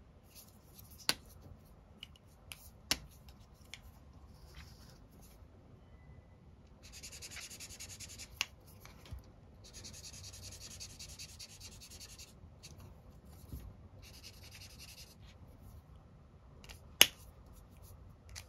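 Felt-tip art marker nib scribbling back and forth on paper in two spells around the middle, with sharp clicks of marker caps being pulled off and pushed back on, about one and three seconds in and again near the end.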